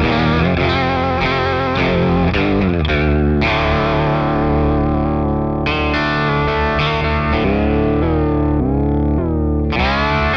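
Electric guitar (Jennings Voyager) played through an EarthQuaker Devices Aqueduct vibrato pedal into a Fender Deluxe Reverb amp. Notes and chords waver steadily in pitch at first, and in the second half each new note bends in pitch as it sounds.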